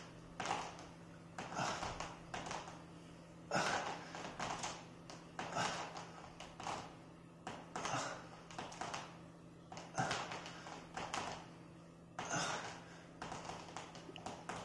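A man breathing hard in rhythm with his push-ups, a burst of breath about every one to two seconds, with light taps from the push-up bars on the hardwood floor and a steady low hum underneath.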